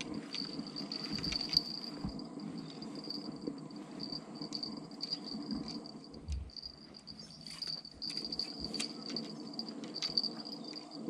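Insects trilling steadily in one high, continuous band, with scattered faint clicks and a low background rumble.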